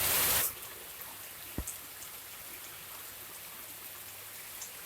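Heavy rain falling steadily, an even hiss of downpour. A brief loud rush opens it in the first half second, and a single knock sounds about a second and a half in.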